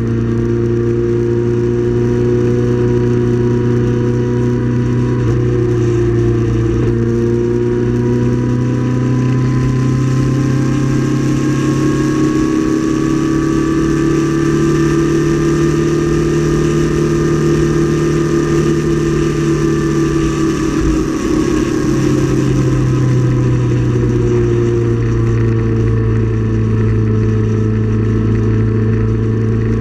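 Motorcycle engine running steadily in sixth gear under a rush of wind noise. The engine note rises slowly through the first half, then drops back about two-thirds of the way in as the bike slows.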